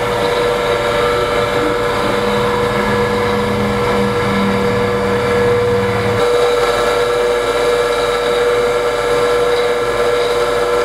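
Fused clapton coil-winding machine with an alien-arm add-on running as it wraps decor wire onto a coil, its motors giving a steady whine. A lower hum under the whine drops away about six seconds in.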